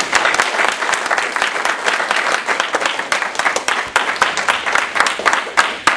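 Audience applauding a speaker's introduction, with many separate hand claps standing out in the steady clapping.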